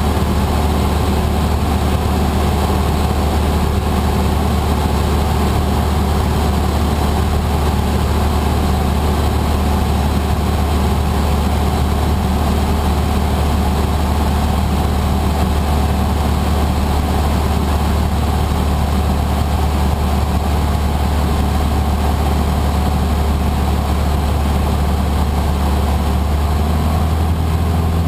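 A single-engine propeller airplane's engine and propeller running steadily in flight, heard from inside the cockpit as a loud, even drone. The engine note shifts near the end.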